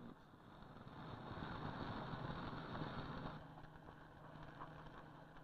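Faint machinery noise: a steady rush that swells for about three seconds and then drops back, leaving a low hum.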